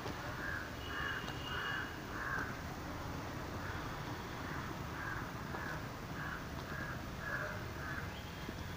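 A crow cawing repeatedly: a run of four caws, then after a short pause a longer run of about eight.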